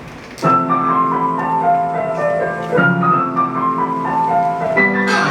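Pop song intro: a piano-like keyboard plays a stepping, mostly descending melody over held chords, starting suddenly about half a second in.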